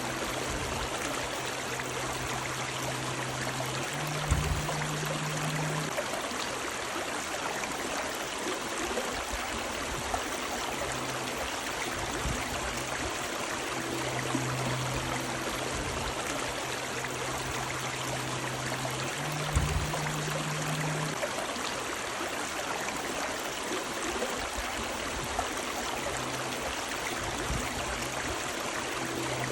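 Running river water, a steady rushing flow. Under it a faint low hum comes and goes, stepping up in pitch with a brief knock twice, about 15 seconds apart.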